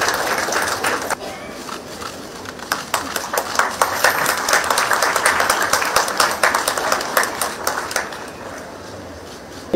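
Audience applauding: many hands clapping irregularly, swelling in the middle and dying away near the end.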